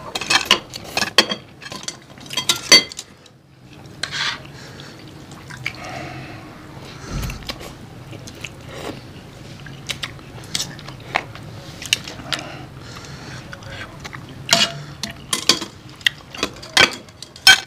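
Eating sounds from a bowl of soupy curry noodles: chopsticks and a spoon clinking against clear plastic bowls and a large metal wok in many short, sharp clicks, with noodles being slurped between them.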